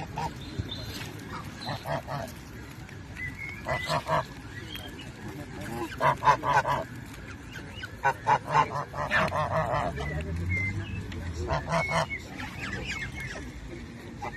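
Geese honking in repeated short bursts, several calls in a row each time. The flock is a mix of white domestic geese and Canada geese.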